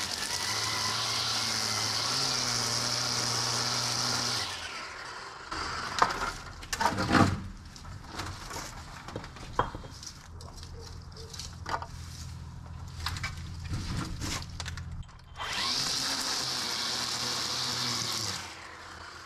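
Toro 60-volt battery-powered edger running, its blade working along the patio pavers with a high hiss. It winds down about four seconds in and is followed by scattered knocks and scrapes. It then runs again for about three seconds before spinning down near the end.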